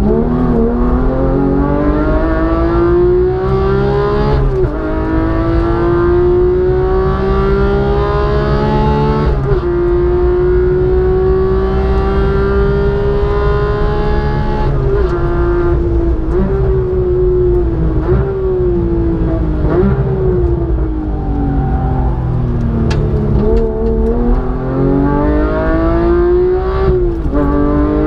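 Porsche 911 flat-six engine heard from inside the cabin on track. It pulls up through the revs and shifts up twice, about 4.5 and 9 seconds in. The pitch then falls through several downshifts with short blips around the middle, bottoms out about 23 seconds in, climbs hard again and shifts up once more near the end.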